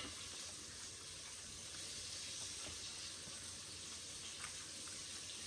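Chicken frying in hot oil: a steady, faint sizzle, with a few soft clicks.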